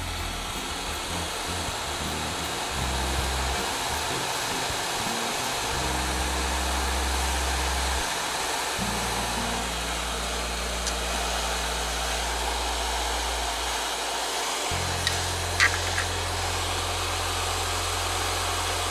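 Hot-air rework gun blowing steadily on a circuit board, heating the solder of surface-mount zener diodes to lift them off. A few small clicks come late on.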